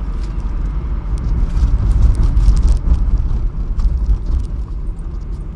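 Road and engine noise heard from inside a moving vehicle: a steady low rumble that swells about one and a half seconds in and eases off after about three seconds, with faint light ticks over it.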